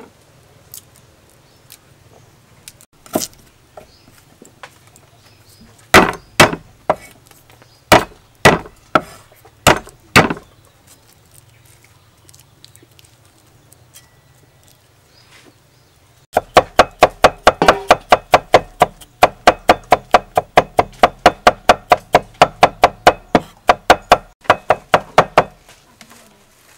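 Knife chopping garlic on a thick round wooden chopping block: a few separate heavy chops, then fast, even mincing at about four to five chops a second for around nine seconds.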